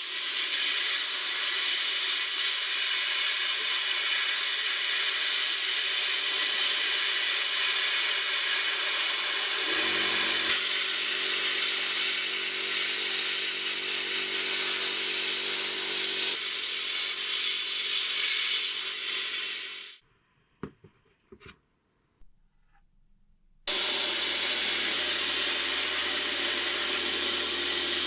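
Steady hiss of air from a compressed-air tool. It cuts off suddenly about twenty seconds in, leaving near silence with a few small clicks, then starts again about three and a half seconds later.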